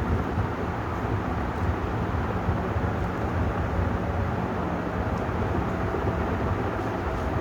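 56-inch Vision ceiling fan running steadily: a constant low rumbling whoosh of moving air with a faint hum in it.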